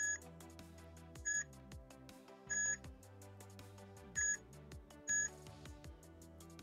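Digital multimeter in continuity mode beeping as its probes touch pads on a bare PCB: five short beeps, irregularly spaced about a second apart. Each beep marks a good connection between the two pads tested.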